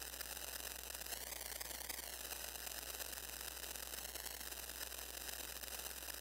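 Modular synthesizer putting out a hiss of noise with a set of evenly stacked, whistling tones running through it; the tones waver up and down about a second in, then hold steady, over a constant low hum.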